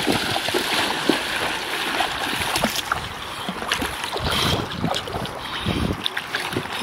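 Water splashing as feet wade quickly through shallow river water and hands work in it, with wind rumbling on the microphone.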